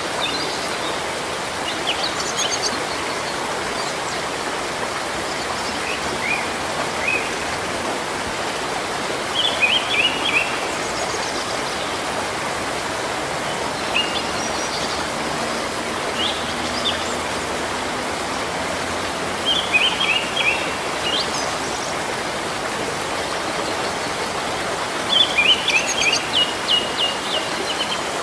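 Steady rain hiss, with a bird chirping in short bursts every few seconds; the longest run of chirps comes near the end.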